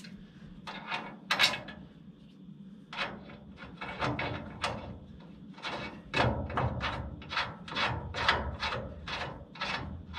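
Metal bolts and a front-end mounting bracket on a 1969 Pontiac Firebird scraping as they are worked by hand. A few scattered scrapes give way, about three seconds in, to short rasping strokes at about two to three a second.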